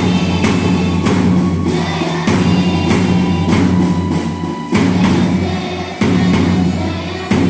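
Group of school students singing together over a sustained instrumental drone, with drum strikes falling about once a second.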